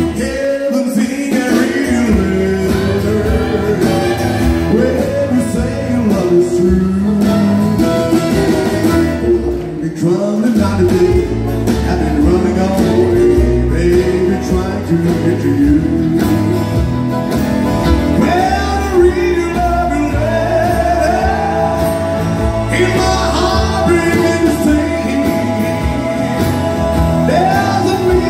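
Live country music from an acoustic band: several strummed acoustic guitars with fiddle. The low end drops out briefly about ten seconds in, then comes back.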